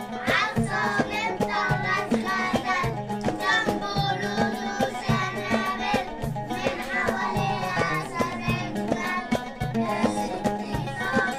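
A group of young children singing together in unison over instrumental accompaniment with a steady beat.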